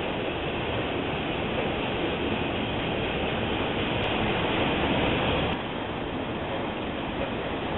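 Freight train of autorack cars rolling past, a steady noise of wheels on rail. The sound changes abruptly and gets slightly quieter about five and a half seconds in.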